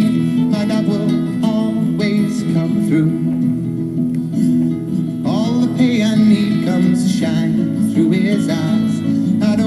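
Background music: an acoustic guitar song. A bending melodic line comes in about five seconds in.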